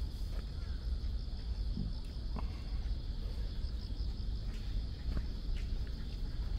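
Crickets chirring in a steady, high, even drone, over a low rumble and a few faint ticks.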